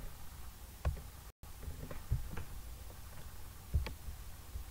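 A few scattered clicks of a computer mouse and keyboard, the loudest near the end, over a steady low hum. The audio drops out completely for an instant about a second and a half in.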